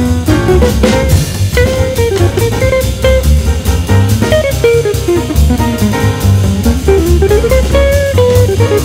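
Background music: an upbeat jazzy tune led by guitar over drums and bass, with a steady beat.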